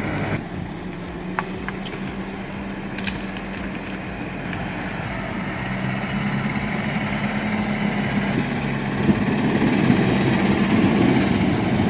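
An engine running steadily at a low, even pitch, growing gradually louder.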